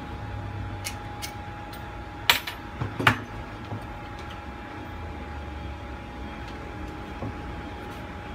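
A few light metallic clinks and taps of small tools on a repair bench, the two loudest a little over 2 and 3 seconds in, over a steady background hum with a faint steady tone.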